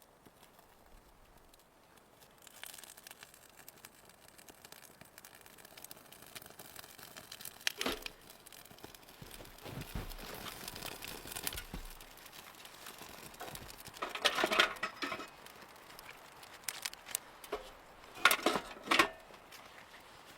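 Intermittent rustling and crinkling handling noise with scattered clicks, in several louder bunches about a third of the way in, in the middle, and near the end.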